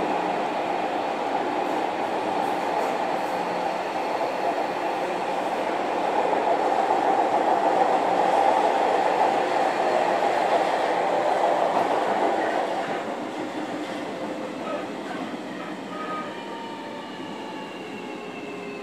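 Running noise recorded aboard a JR Kyushu 305 series electric motor car: steady, loud rolling and motor noise for most of the time. About two-thirds of the way through it eases off, and several thin motor tones begin to fall slowly in pitch as the train slows.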